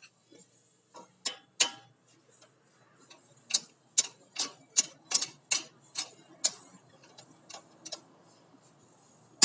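About a dozen sharp metal-on-metal clicks and taps, a few early on and then close together for a few seconds in the middle. They come from brake pads and parts being worked into the front brake caliper of a VW Kombi.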